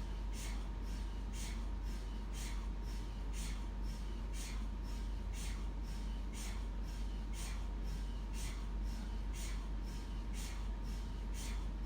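MRI scanner running a scan sequence: its gradient coils knock regularly, about twice a second, over a steady low hum and a faint steady tone.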